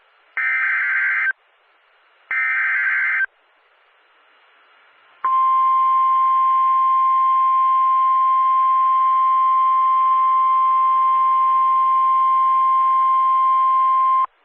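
Two buzzing bursts of Emergency Alert System digital header data, about a second each with a second between them. About two seconds later comes the steady NOAA Weather Radio warning alarm tone, held for about nine seconds. Together they signal that a new warning is about to be read.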